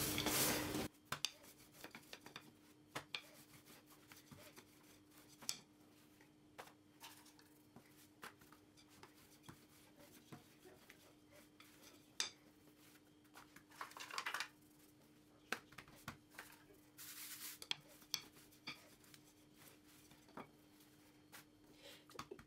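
Hands pressing and stretching dough on a floured granite countertop: quiet scattered taps and short rubbing sounds, louder for the first second, over a faint steady hum.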